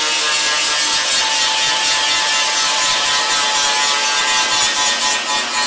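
An electric motor, most likely a power grinder's, running steadily with a high whine over a hiss.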